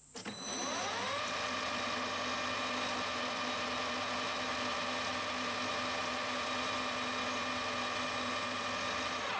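Metal lathe spinning up with a rising whine over about the first second, then running steadily at speed while it turns an aluminium mandrel held in a four-jaw chuck.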